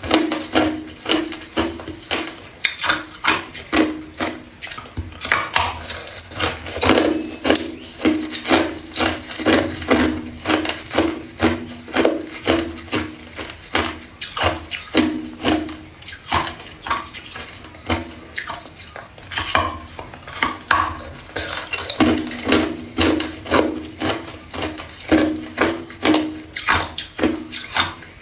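Hard clear ice being bitten and chewed: a steady run of sharp, brittle crunches, about two a second, with brief pauses.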